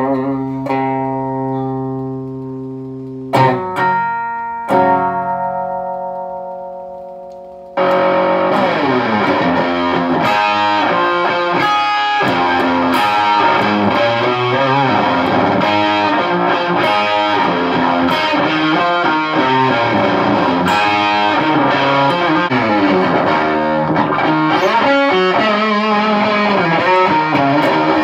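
Electric guitar played through a Visual Sound Angry Fuzz pedal into a Peavey Bandit 112 combo amp. A few chords are struck and left to ring out and fade. From about eight seconds in comes a steady run of dense, distorted riffing.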